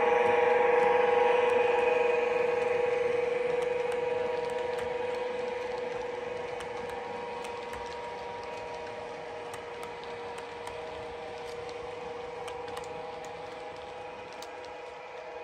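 OO gauge model Class 92 electric locomotive passing with a steady motor whine, loudest as it goes by and then fading. The Mk5 sleeper coaches follow with light, irregular clicks from their wheels on the track.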